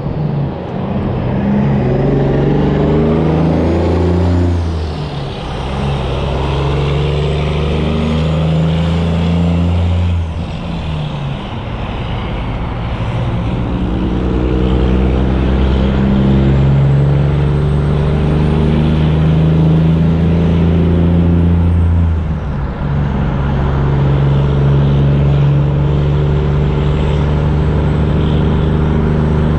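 Heavy diesel truck engines running hard. The engine note breaks off and picks up again about five, ten and twenty-two seconds in, as gears change.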